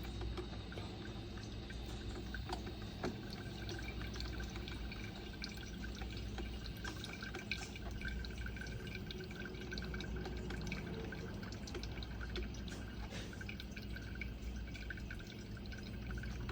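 Hamilton Beach programmable drip coffee maker brewing: hot water dripping into the carafe, with many small irregular ticks over a steady low hum.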